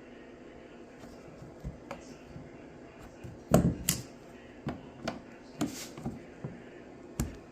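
A run of irregular sharp clicks and knocks of hard objects being handled, starting about three and a half seconds in, over a faint steady hum.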